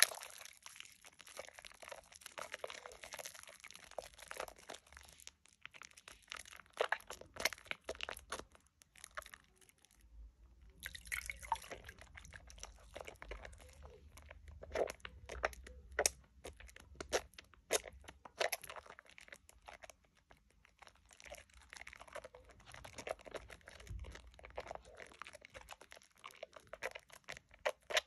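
Soapy hands squeezing and kneading a thick lather of Dove shea butter bar soap: rapid squelching and crackling of foam bubbles, with a brief pause about ten seconds in.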